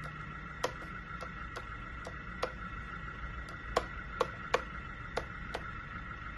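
Lesu RC hydraulic backhoe model with a steady high electric whine, broken by irregular sharp clicks about two a second.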